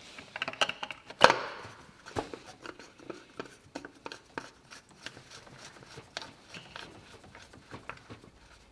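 Oil filter housing cap on a Mercedes W205 engine being put back and turned by hand after a new filter element goes in: a run of small clicks and knocks, with one sharp knock about a second in, thinning out near the end.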